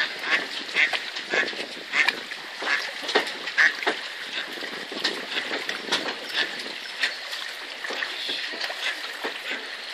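Short animal calls repeated irregularly, about one or two a second, over a steady outdoor hiss.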